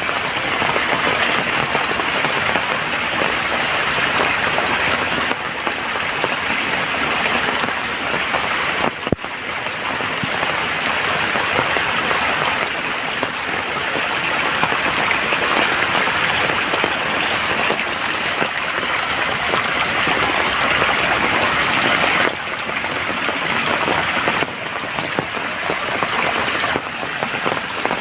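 Heavy rain falling steadily: a dense, even hiss of drops striking surfaces, with one sharp click about nine seconds in.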